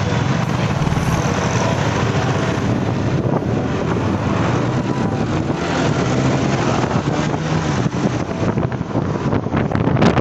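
Motorcycle engine running while riding along a road, with wind buffeting the microphone, heavier near the end.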